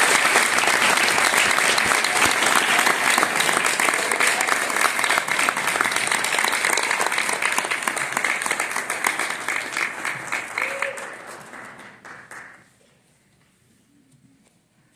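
Audience applauding in an auditorium, the clapping thinning and dying away about twelve seconds in, leaving near silence.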